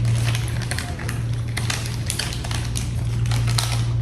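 A steady low electrical hum with irregular small clicks and crackles scattered over it.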